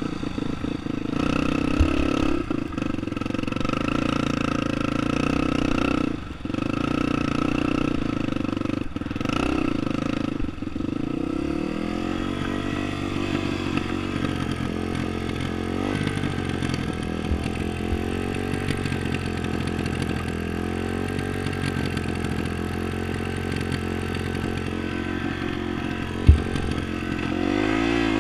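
Dirt bike engine running under throttle while riding over sand, cutting off briefly twice in the first ten seconds, then revving up and down. A single sharp knock near the end.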